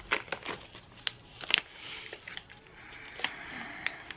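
Carbon fiber vinyl wrap being cut with a blade and handled: scattered sharp clicks and crackles, with two scratchy hissing strokes as the blade drags through the vinyl.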